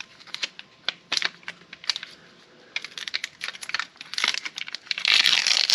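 Sticky tire-plug repair strings being pulled apart and handled along with their torn plastic wrapper: scattered crinkling and light clicks, with a brief denser patch of crinkling near the end.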